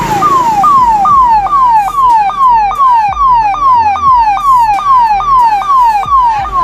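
Ambulance electronic siren playing its third pattern, the one used inside the city to tell traffic that the ambulance has entered the city and to give way: a quick repeating sweep, each falling in pitch and jumping back up, about two and a half a second.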